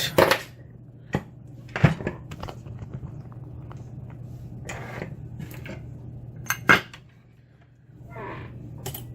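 Scattered metal clicks and clinks from a pinned lock and steel lock picks being handled and set down, over a steady low electrical hum.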